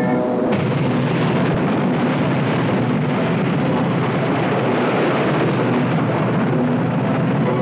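Loud, steady rushing noise of powerful engine exhaust at full thrust, starting suddenly about half a second in.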